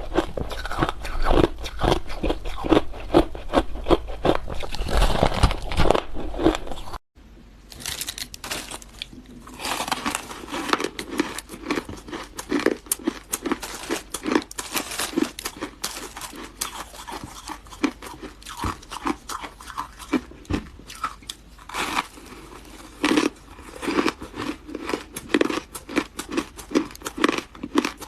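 Hard ice being bitten and chewed close to the microphone: a dense run of sharp crunches and cracks. The sound cuts out for an instant about seven seconds in, then the crunching carries on a little quieter.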